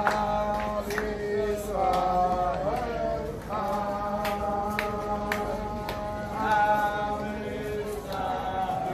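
A group of Orthodox Jewish men singing a melody together, several voices on long held notes, with scattered sharp handclaps.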